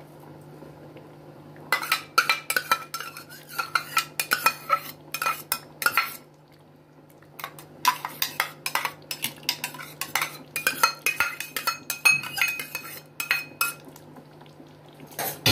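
Metal ladle clinking and scraping against a metal cooking pot while stirring thick khichdi to mix in ghee. It comes in two spells of quick strokes with a short pause about six seconds in, over a steady low hum.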